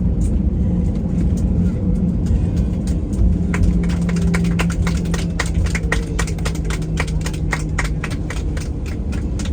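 Airliner cabin noise on the ground: the engines and rolling wheels make a steady low rumble with a held low tone. From about three and a half seconds in comes a rapid run of rattling clicks.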